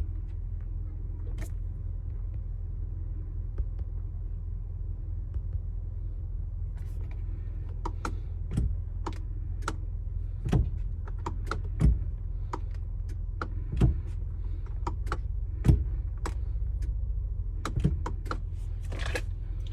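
In the cab of a 2022 Mercedes Sprinter van that will not start: a steady low hum, with a series of irregular clicks and light knocks from about seven seconds in. No engine is heard starting or running.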